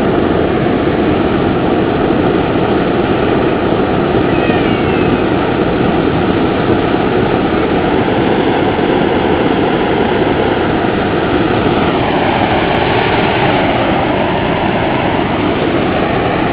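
Steady, loud rushing hum of the air blower forcing the phosphorus-reduction furnace, with a steady tone through it; a second tone slides down in pitch about three-quarters of the way through.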